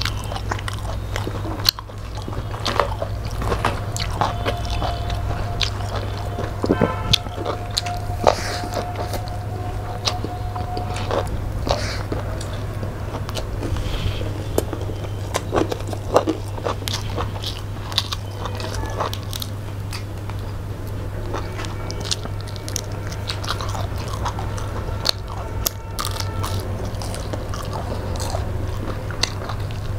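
Close-miked eating: two people biting and chewing fried fish and rice eaten by hand, a steady run of wet smacks and crunchy clicks.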